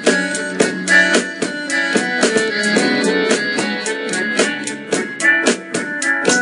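Background music with a steady drum beat, about three beats a second, under pitched instrument lines.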